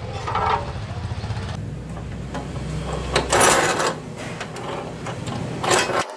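Square steel tubing being clamped in a cut-off saw's screw vise: metal scraping and clattering, loudest about three and a half seconds in and again near the end, over a steady low hum.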